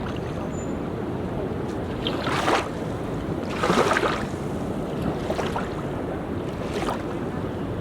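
Sea waves washing and splashing on a beach, with wind rumbling on the microphone; four louder splashes come about every second and a half.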